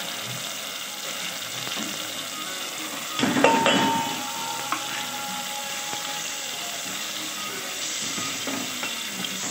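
Chopped tomatoes sizzling in hot oil in a steel pot, with a louder burst of sizzle about three seconds in as ground spices are tipped in. Near the end a spoon stirs through the mixture against the pot.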